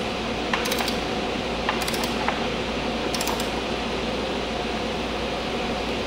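Click-type torque wrench ratcheting in three short bursts of rapid clicks, about a second apart in the first half, while tightening a motorcycle's rear axle nut. A fan runs steadily underneath.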